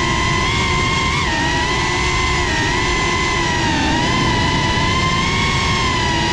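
FPV quadcopter's motors and propellers whining steadily, the pitch wavering slightly up and down with throttle, over a low rushing noise.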